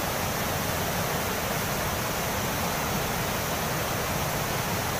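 A flooded mountain river rushing over rocks: a loud, steady torrent of white water.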